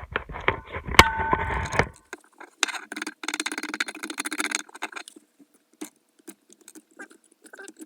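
Metal clattering, knocking and scraping as crusted rust is knocked off an old iron clasp knife, with one sharp knock about a second in. After a short gap comes a spell of rapid scratchy clicking, then a few scattered clicks.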